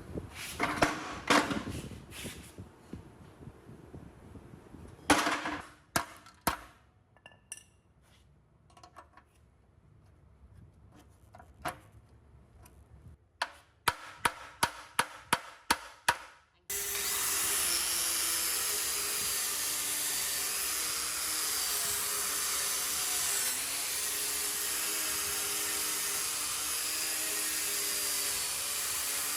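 Scattered knocks and clanks of tools on metal, then a quick run of about six hard strikes, roughly two a second. A little past halfway an electric power tool, grinder-like, starts abruptly and runs steadily with a slightly wavering whine.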